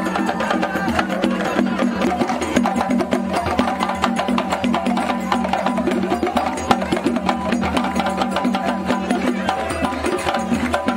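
Traditional West African drum ensemble of several drums playing a fast, dense, driving rhythm for dancers, with sharp clacking strokes over it.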